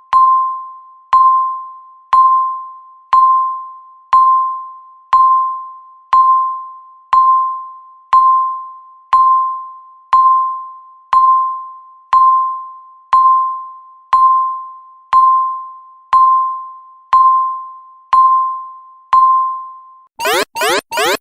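Digital countdown timer beeping once a second: a single clear electronic beep that rings and fades away before the next. About twenty seconds in the beeps stop and the loud final alarm starts as the timer hits zero, a fast run of repeated rising sweeps.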